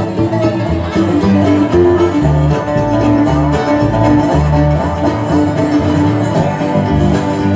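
Acoustic blues band playing an instrumental passage: harmonica notes held over strummed acoustic guitar and a moving line of low notes.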